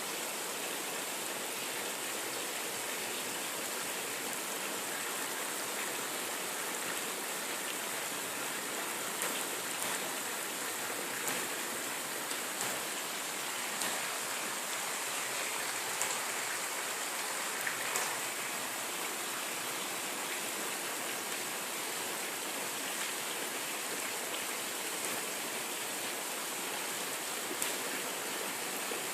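Moderate rain falling steadily, a constant hiss of drops with a few sharper drop hits now and then.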